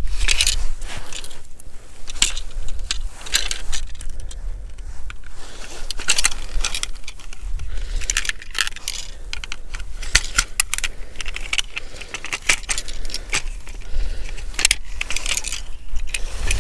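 Ice-fishing tip-up being set up by hand: its folding arms, flag and spool clicking, clattering and rattling in repeated short bursts, over a steady low rumble.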